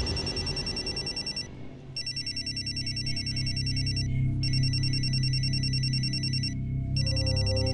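Mobile phone ringtone ringing for an incoming call: a high repeating electronic pattern broken by short pauses about every two and a half seconds, over low steady background music.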